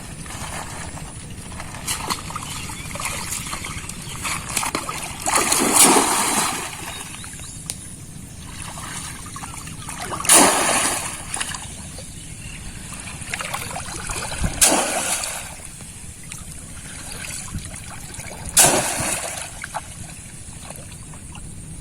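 Water splashing in a shallow pond: four loud splashes a few seconds apart, each dying away over about a second, over a steady low trickle and slosh of water.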